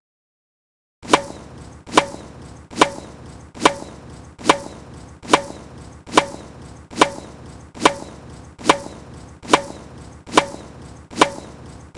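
Tennis ball hits repeated at a very even pace, about one every 0.85 seconds, each a sharp pock with a short ring, starting about a second in after silence.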